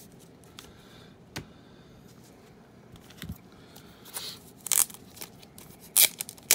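Trading cards and their plastic sleeves being handled: a few light clicks in the first half, plastic crinkling a little past halfway, then two sharp snaps near the end, the loudest sounds.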